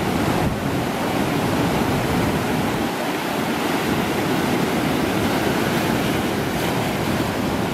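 Sea surf breaking over rocks onto a beach: a steady rush of crashing and foaming water.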